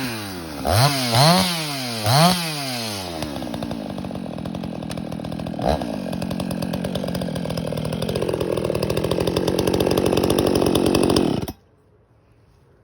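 Woods-ported Husqvarna 288XP two-stroke chainsaw dropping off full throttle and blipped up three times in quick succession. It then idles roughly for several seconds and is switched off, stopping abruptly near the end.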